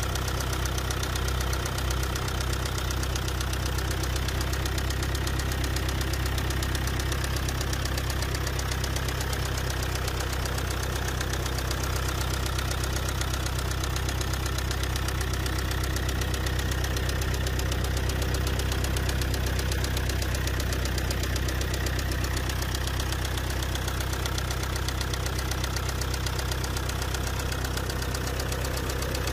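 Four-cylinder common-rail diesel engine idling steadily with a fast, regular knocking from inside the engine, which the mechanic puts down to a problem with the crankshaft, a piston or a connecting-rod bearing.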